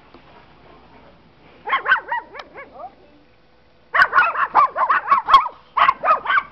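A dog barking in quick strings of high-pitched yaps. There is a short run about two seconds in, then a longer, louder volley of rapid barks from about four seconds on, with a brief break near the end.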